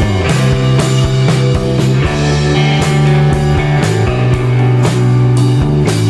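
Background music with a steady drum beat and sustained bass notes.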